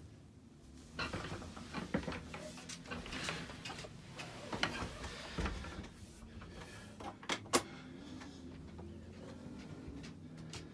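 Scattered knocks, clicks and rustling of someone moving about and handling things, with a sharp click about seven and a half seconds in, over a faint steady low hum.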